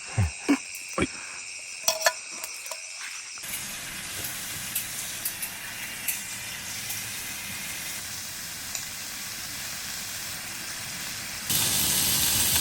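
Wood fire hissing, with scattered sharp crackles and pops. Insects are ringing steadily for the first few seconds. The hiss gets louder near the end.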